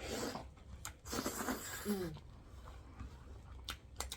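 Close-miked, wet chewing and mouth sounds of a person eating, in bursts of about a second, with a short hummed "mm" near the middle and a few sharp clicks near the end.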